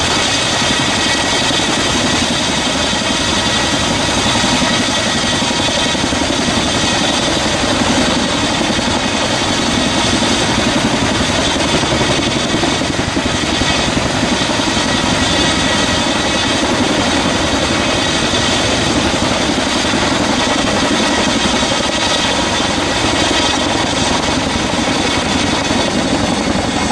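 Chinook twin-turbine tandem-rotor helicopter running steadily: a dense rotor and engine noise with a steady high turbine whine, unchanging throughout.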